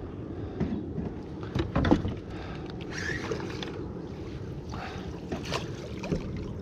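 Water splashing and scattered knocks around a plastic sit-on-top fishing kayak while a hooked snook is fought beside it, the loudest about two seconds in, over a steady low rumble of water and wind.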